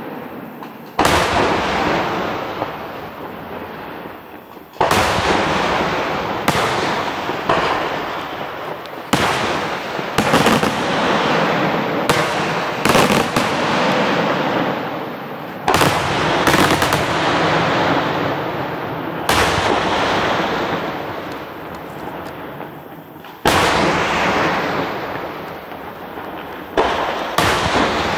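Aerial firework shells bursting one after another, a sharp bang every one to four seconds, often two close together, each trailing off in a long rolling echo.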